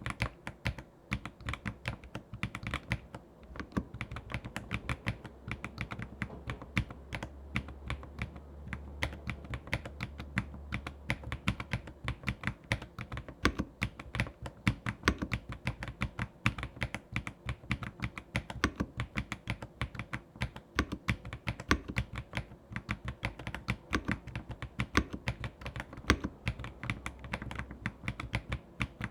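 Continuous typing on an Ajazz AK820PRO mechanical keyboard fitted with its original stock switches, which are a bit loud: a quick, uneven run of keystroke clicks, several a second.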